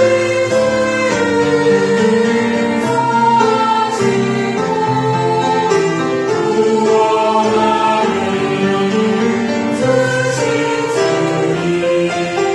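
Church choir singing a hymn in parts, with sustained notes that hold and then move together.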